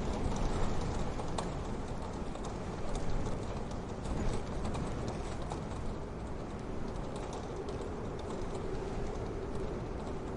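Wood fire crackling in a wood-burning stove: many small irregular pops and snaps over a steady low rush.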